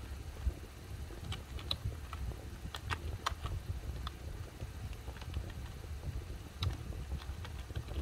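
Keys being pressed on a backlit computer keyboard: irregular clicks, some in quick little clusters, over a low steady rumble.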